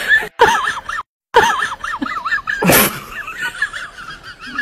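Comic sound-effect track: a continuous run of high, wobbling honk-like calls, broken by two brief dropouts in the first second and a short burst of noise a little before three seconds in.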